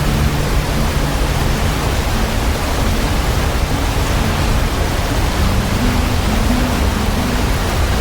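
A waterfall's steady, loud rushing roar of falling water. A few soft, low held notes shift in pitch underneath it.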